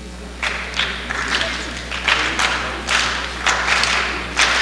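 Scattered thuds and claps in an audience hall, coming irregularly a few times a second, over a steady low electrical hum.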